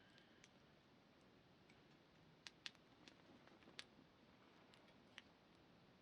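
Campfire crackling faintly: scattered sharp pops and snaps, several close together around the middle, over a soft steady hiss.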